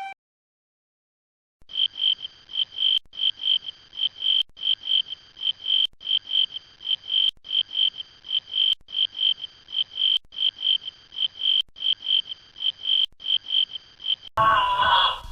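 An animal's high chirping call, repeated evenly about three times a second, with a short break every second and a half as if the recording were looped. Near the end a different, lower pitched animal call cuts in.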